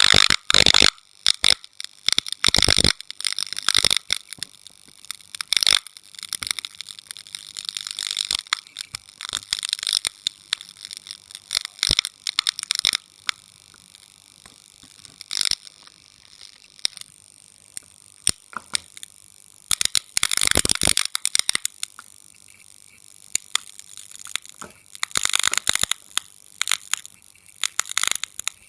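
Logo intro sound effects: a run of sharp clicks and crackling bursts with hissy noise in the upper range, sparser and quieter for several seconds in the middle, then dense crackling again near the end.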